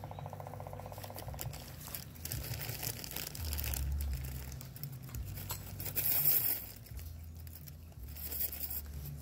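Rustling and crinkling handling sounds from work on a steel T-post trellis, with a rapid run of fine clicks in the first second and a half.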